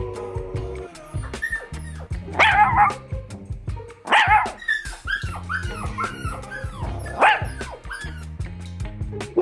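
A dog barking three times, about two and a half, four and seven seconds in, with a run of short, high, falling yelps between the second and third bark, over background music with a steady low beat.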